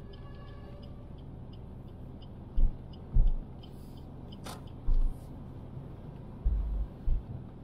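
A car driving in city traffic: steady road rumble broken by several short, low thumps, with a faint fast ticking of about four a second and one sharp click about four and a half seconds in.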